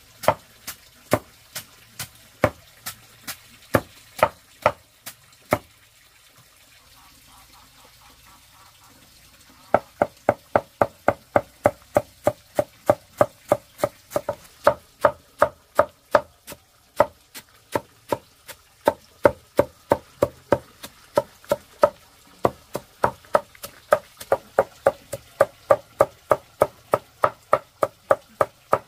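Repeated chopping strikes. A few spaced chops come first, then a pause of a few seconds, then steady chopping at about three strikes a second.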